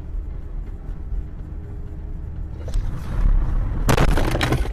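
Low engine and road rumble from inside a moving car. About three seconds in the noise swells, and near the end comes a loud crash as the car collides with another car.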